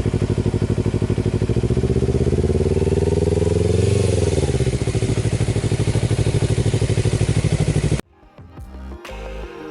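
Kawasaki Versys-X motorcycle's parallel-twin engine running, its revs climbing for a couple of seconds and then dropping back. About eight seconds in, the engine sound cuts off abruptly and music begins.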